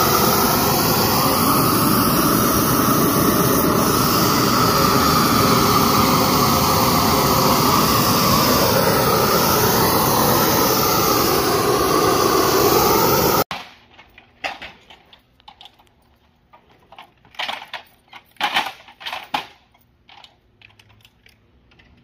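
A loud, steady rushing roar that cuts off abruptly about two-thirds of the way in, followed by a few quieter, scattered knocks.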